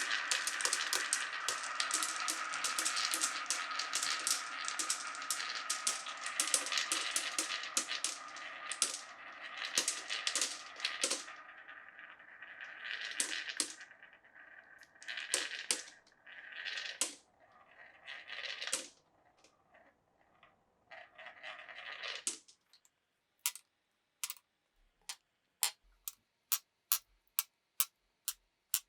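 Many glass marbles rolling and clattering through a wooden marble run, a dense stream that thins into separate runs and stops about two-thirds of the way through. After a short pause, a series of sharp, evenly spaced ticks begins, speeding up from about two a second.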